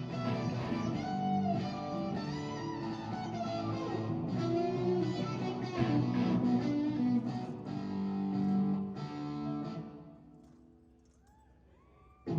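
Electric guitar playing a line of notes, some of them bending in pitch, fading out about ten seconds in.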